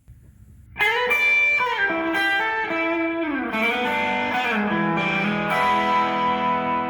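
Electric guitar music: a short plucked riff begins just under a second in, its notes stepping downward, then settles into a held chord left to ring out.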